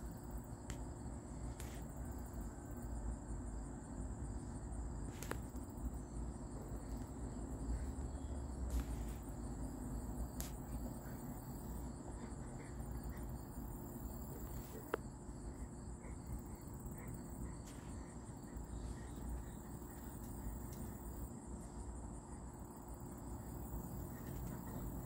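Insects trilling in a steady, high-pitched tone over a low rumble, with a few faint clicks.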